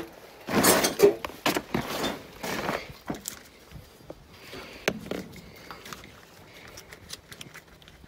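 Handling noises: rustling and scraping with scattered clicks and knocks, loudest in the first three seconds, as hands work among the wiring to connect a scanner to an OBD2 port.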